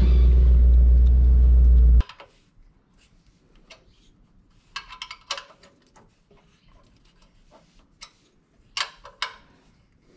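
S550 Mustang's engine idling with a steady low drone, cut off abruptly about two seconds in. After that come light clicks and metal clinks of bolts being fitted by hand to a front-mounted intercooler, with a few sharper clinks around the middle and near the end.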